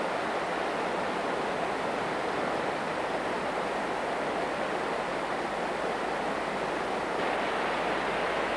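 Fast river rapids rushing over rocks: a steady, even roar of white water that grows slightly brighter near the end.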